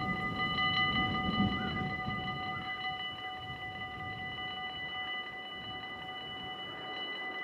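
Dutch level-crossing warning bell ringing with fast, even strokes while the half-barriers rise after a train has passed. A low rumble from the departing train fades out in the first few seconds.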